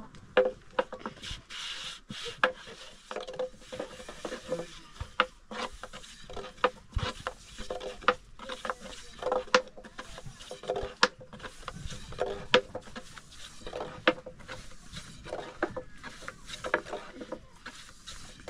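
Thin wooden rolling pin knocking and rolling on a round wooden board as flatbread dough is rolled out: irregular sharp wooden clacks, one to three a second.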